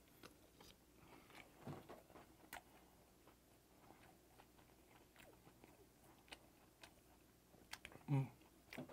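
Close-miked chewing of steamed skate, with soft, faint wet clicks of the mouth and jaw. A brief low hum from the eater near the end is the loudest sound.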